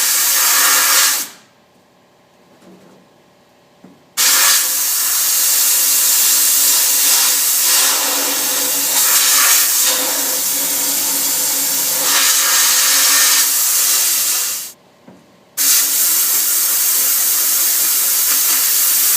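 Sandblasting gun in a Harbor Freight blast cabinet firing compressed air and black diamond blasting media in three loud hissing bursts: a short one at the start, a long one of about ten seconds from about four seconds in, and another from about fifteen seconds in.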